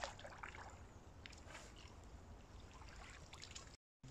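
Faint splashing and trickling of water as a landing net is worked in the water, with a few light knocks in the first second or so. The sound cuts off abruptly just before the end.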